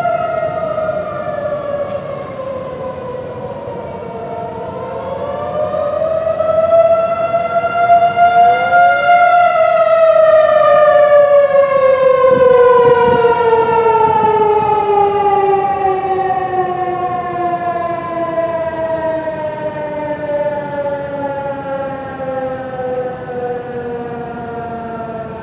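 Federal Signal Modulator 3012 outdoor warning siren wailing. Its pitch falls, rises again about five seconds in, then sinks slowly for the rest. It grows loudest near the middle and then fades, with more than one siren tone overlapping.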